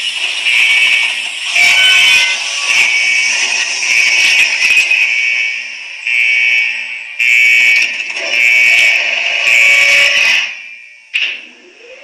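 Sound effects of an animated logo intro: a loud, harsh, high-pitched alarm-like buzzing tone broken by a series of sudden hits. It dies away about ten seconds in, then one more hit comes and the tone returns near the end.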